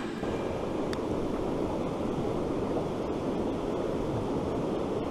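Steady rushing of a swift river current, with wind.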